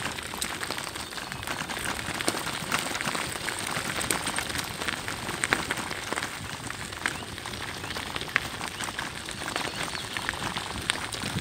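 Bicycle tyres rolling fast downhill over a gravel forest track: a steady crunching hiss with many small clicks of grit and stones.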